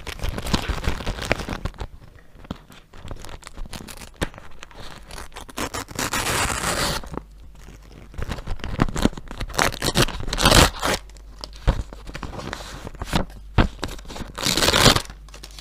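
A handmade crinkly-paper surprise pouch being handled and torn open: paper crinkling and rustling with small clicks, and louder stretches of tearing about six seconds in, around ten seconds in and near the end.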